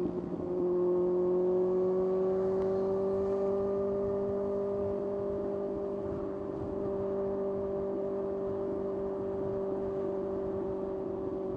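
Kawasaki ZX-6R's inline-four engine running at steady revs under way, holding a nearly constant pitch after a brief unsettled moment right at the start.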